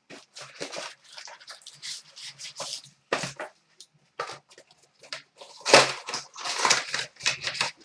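Trading-card packs and cards being handled: irregular crinkling and rustling of the pack wrappers, and cards sliding against each other, in short bursts with the loudest cluster about six seconds in.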